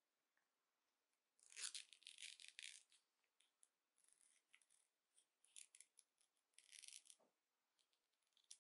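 Small scissors snipping through a towel's care label, with the label crinkling, in quiet short bursts of crisp noise; the longest comes about a second and a half in.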